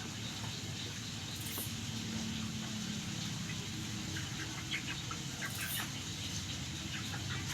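Young chickens peeping in short, high chirps, mostly in the second half, over a steady low hum.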